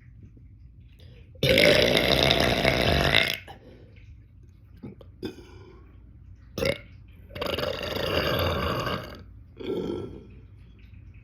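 A man belching deliberately: a long, loud burp lasting about two seconds, a second long burp a few seconds later, then a short one near the end, with brief smaller sounds between. The first burp is the loudest.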